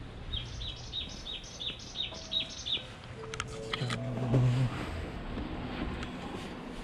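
A bird calling a rapid series of about eight short, falling chirps, about three a second, over the first three seconds. A few sharp clicks follow, then a brief low hum about four seconds in that is the loudest sound.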